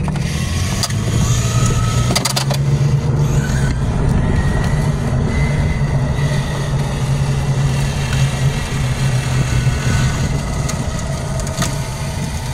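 Car engine running with a steady low hum and rough tyre noise on asphalt while driving slowly along a road; a few sharp clicks about two seconds in and once near the end.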